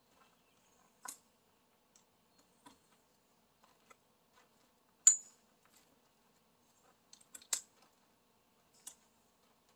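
A handful of short sharp clicks and snaps of small hardware being handled while fitting a boat's bimini top, the loudest about five seconds in, with a quick cluster near the end.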